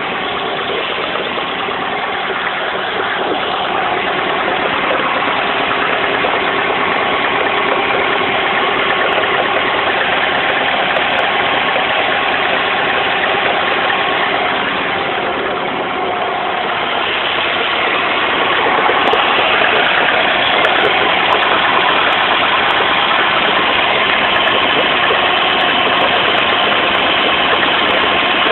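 Car engine idling with an extraneous noise from the clutch area, a clutch 'burble'. The sound dips briefly midway and is louder in the second half.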